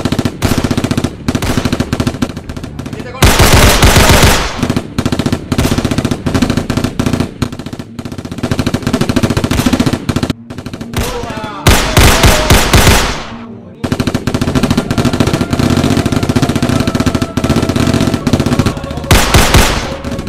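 Rapid automatic gunfire in long, dense bursts with a few short pauses. The heaviest, loudest bursts come about three seconds in and again around twelve seconds.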